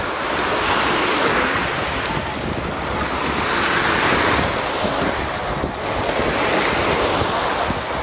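Small waves breaking and washing up over sand at the shoreline in foamy surges that swell and ease every few seconds, with wind buffeting the microphone.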